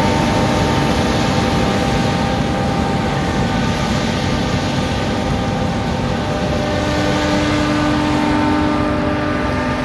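John Deere S790 combine harvester running steadily while cutting barley: a loud, even machine drone with several held tones over a low rumble.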